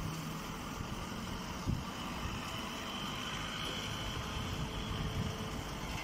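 Baling machinery running: a steady low mechanical rumble with a faint high whine.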